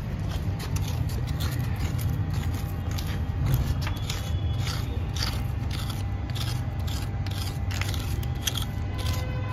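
A hand scraping and scooping dry soil and small stones, pushing a small plastic toy dump truck through the dirt: an irregular string of scratchy, crunchy crackles over a low steady rumble.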